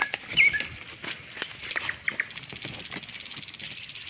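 Leaves and twigs rustling and crackling as a hand pushes through forest undergrowth. Two short sharp bird chirps sound near the start. From about halfway a high, rapid, even pulsing trill sets in.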